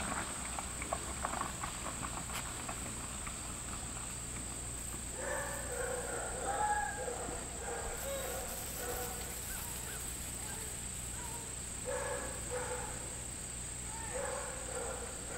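Outdoor ambience with a steady high insect drone, with faint, muffled voices joining in about five seconds in and again a few times near the end.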